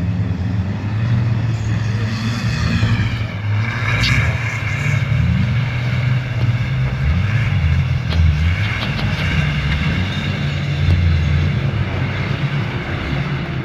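Engines of several off-road 4x4s running hard on a dirt hill-climb course, their pitch rising and falling as the drivers work the throttle.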